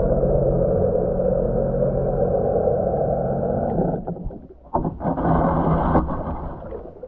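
Muffled engine drone of a Sea-Doo jet ski heard underwater, a steady hum that drops away about four seconds in, swells again briefly, then fades.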